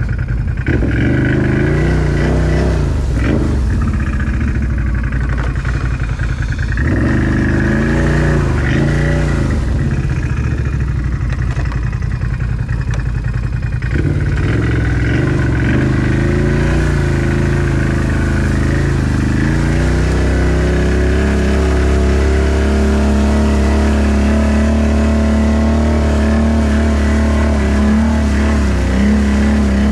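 Off-road vehicle engine revving up and down while riding, settling into a steadier drone in the second half.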